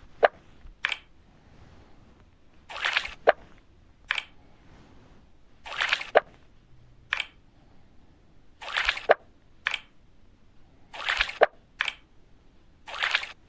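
Cartoon game sound effects for implanting hair follicles, repeating about every three seconds: each time a short noisy burst, a sharp click right after it, then a briefer second burst.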